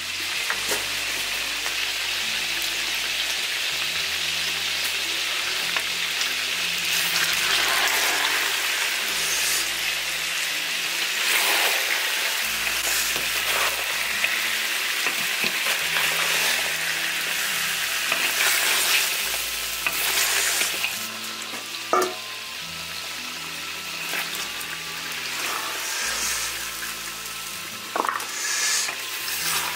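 Lamb and rolled dough pieces sizzling in a large black wok while a wooden spatula stirs them. A steady frying hiss comes up sharply as the lid comes off and eases somewhat after about twenty seconds, with a couple of sharp knocks of the spatula on the wok near the end.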